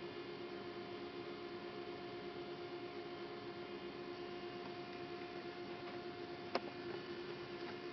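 Steady electrical hum with several fixed tones from a switched-on CNC lathe while its Heidenhain control starts up. A single sharp click comes about six and a half seconds in.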